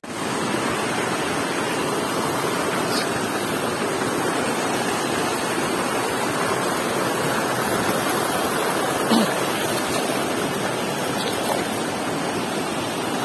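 Rocky river running fast over stones in shallow rapids, a steady rush of water. One brief thump about nine seconds in.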